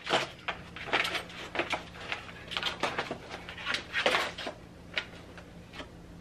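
Small cardboard box being handled and closed, with irregular light taps, scrapes and rustles of cardboard and of the small accessories shifting inside.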